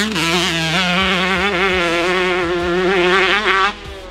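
Single-cylinder two-stroke engine of a 2005 Honda CR125 motocross bike running at high revs, its pitch holding fairly steady with small rises and falls. It drops away briefly near the end.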